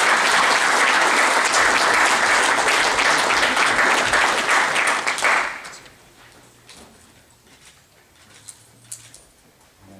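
Audience applauding, ending suddenly about five and a half seconds in. After that it is quiet apart from a few faint taps and rustles.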